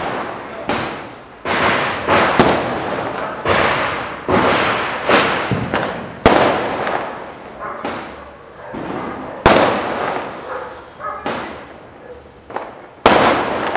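Aerial fireworks bursting, more than a dozen sharp bangs at irregular intervals, each fading away over about a second, with the loudest about six seconds in, near the middle and near the end.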